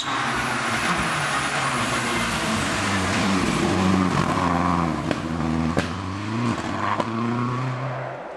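Peugeot 307 rally car's engine at high revs as the car approaches and passes, its pitch stepping through gear changes, with several sharp cracks about five to seven seconds in. A steady hiss of tyres on wet tarmac runs under it, and the sound falls away near the end.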